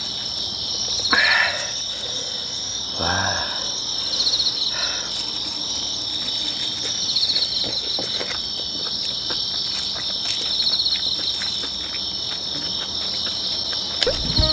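A steady night chorus of insects, crickets chirping, with a louder pulsed trill every three seconds or so. Short bursts of eating noise from the table and small clicks of chopsticks come through a few times.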